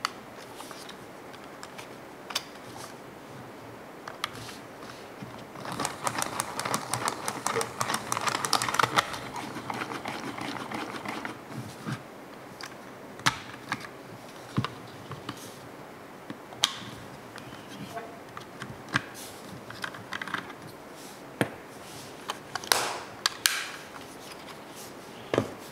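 Rewind crank of a reusable 35mm plastic film camera being turned, a rapid run of clicks for about five seconds as the film winds back into its cassette. Then come scattered sharp plastic clicks and taps as the crank is lifted, the camera back is opened and the film cassette is handled.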